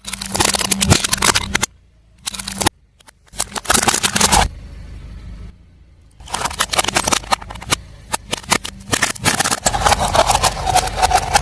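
Crunching and crackling as a car tyre rolls over and crushes crunchy objects, with the car's engine running underneath. It comes in four separate bursts, the last and longest starting about six seconds in.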